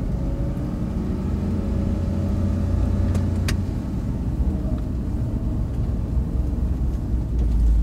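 Car engine and tyre noise heard from inside the cabin while driving steadily, a low rumble with a wavering engine note. Two short sharp knocks sound a little over three seconds in.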